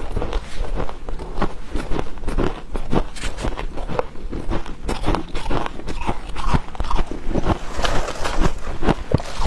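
Dry freezer frost crunching and squeaking in a dense, irregular run of crisp crackles.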